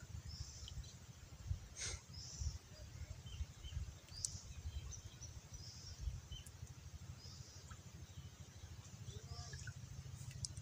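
Small birds chirping in short, high, repeated calls over a faint low rumble, with a light knock about two seconds in.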